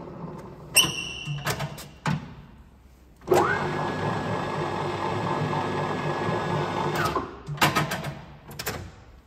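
Colchester Bantam lathe running down, then several sharp metallic clicks from its controls. About three seconds in the spindle starts again and runs steadily with a constant hum for about four seconds, then stops, followed by a few more clicks.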